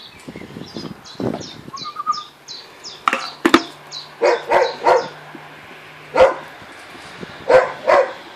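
Grand Basset Griffon Vendéen puppies yipping and barking in short, sharp bursts, about eight in all from about three seconds in, after a run of quick high squeaks, as their food arrives.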